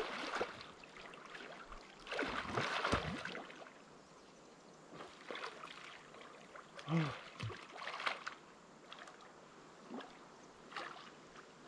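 A person swimming in a river pool some way off: irregular bursts of splashing from arm strokes, with quieter lapping water between them.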